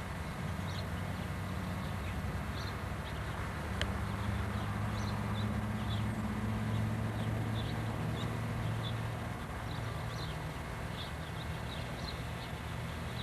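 A steady low engine drone, easing off slightly in the second half, with small birds chirping in short calls throughout.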